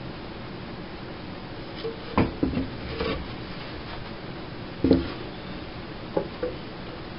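Wooden parts of a handmade wooden tool clacking against each other and against a wooden surface as it is handled: a few separate knocks, the loudest about five seconds in, over a steady hiss.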